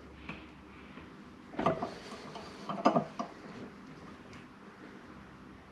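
Metal tools clanking against a steering wheel puller as it is cranked to pull the pulley off a guillotine shaft. There are a few short, sharp clanks, the loudest about a second and a half and three seconds in.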